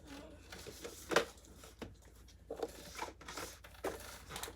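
Handling of computer parts and their packaging: a series of short, irregular rustles and light clicks, the loudest a little over a second in.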